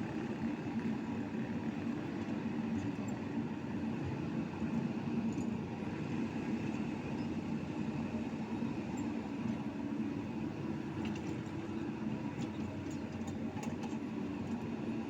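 Excavator's diesel engine running steadily, with a few faint ticks in the later part.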